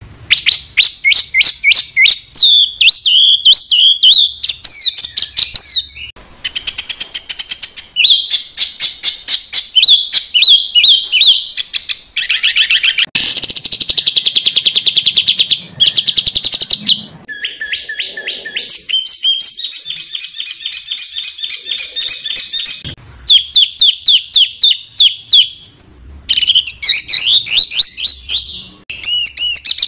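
Songbird song in the dense, rapid-fire 'tembakan rapat' style used as masteran training material for cage songbirds. Fast runs of repeated high notes, trills and sweeping whistles change every few seconds with brief gaps. It begins abruptly out of silence.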